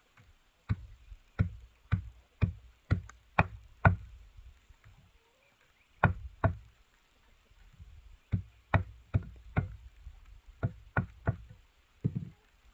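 Sharp blows of a hand tool striking wood, about two a second, in short runs with pauses between. The first run is the longest, about seven blows.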